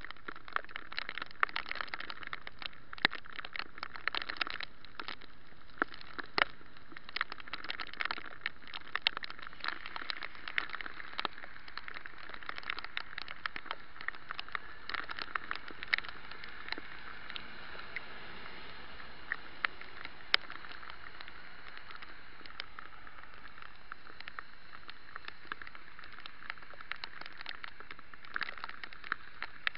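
Riding a bicycle on wet streets in the rain: a steady hiss of tyres and rain, with many sharp clicks and taps. The clicks are thickest in the first half, ease off in the middle and pick up again near the end.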